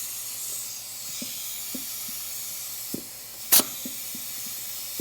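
Compressed air at about 40 PSI hissing steadily from an air nozzle held to a feed hole of a 4L60E forward input drum, with one short loud burst about three and a half seconds in. The hiss is air escaping around the worn-out nozzle fitting, not a leak in the drum, and the clutch holds.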